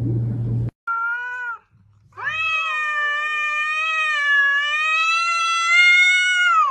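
Cat yowling at another cat in a standoff: a short meow about a second in, then one long, drawn-out yowl of about four seconds at a fairly steady pitch.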